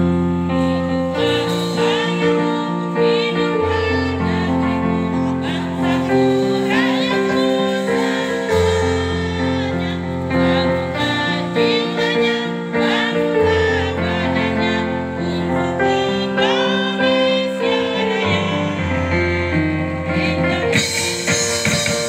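Community choir of children and adults singing in unison over steady instrumental accompaniment of sustained chords and a bass line.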